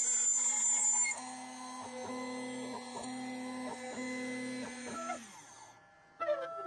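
CNC router carving a walnut pocket with a tapered ballnose bit. A high whine sounds for about the first second, then the stepper motors driving the axes sing in steady tones that jump to a new pitch with each move, like a printer. Near the end the tones slide down and fade, and a new motor tone starts as the spindle lifts and moves off.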